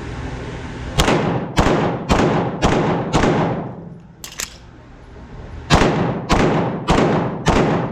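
Pistol fired five times at about two shots a second, then a pause of about two and a half seconds for a magazine reload with a couple of short clicks, then four more shots at the same pace.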